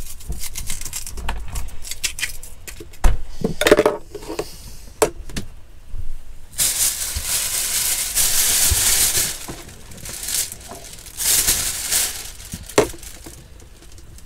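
Kitchen handling sounds: a knife and onion knocking and clicking on a plastic chopping board, then a thin plastic carrier bag rustling in two longer spells, with a sharp click near the end.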